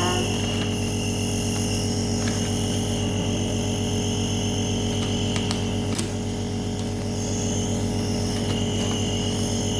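Steady hum of a small electric machine with a high whine over it, unchanging throughout, and a single sharp click about six seconds in.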